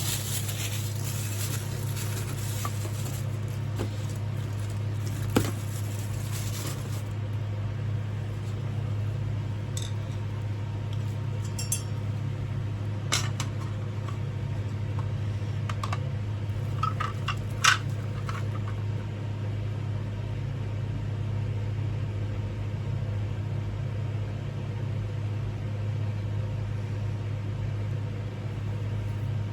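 A steady low hum throughout, with a few scattered light clicks and clinks as ceiling fan parts are handled while a fan blade is fitted and screwed on; the sharpest click comes a little past the middle.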